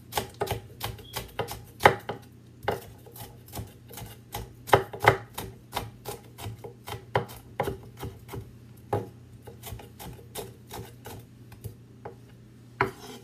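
Chef's knife chopping green bell pepper on a wooden cutting board: quick, irregular knocks of the blade striking the board, several a second, thinning out near the end.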